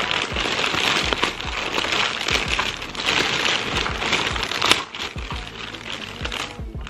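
Paper takeout bag crinkling and rustling as it is handled and opened, with one sharp crackle partway through and quieter rustling after it. Background music plays underneath.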